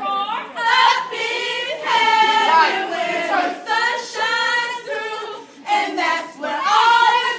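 A group of women singing a step-show chant together in unison, in long drawn-out notes that slide up and down, with a short break a little past the middle.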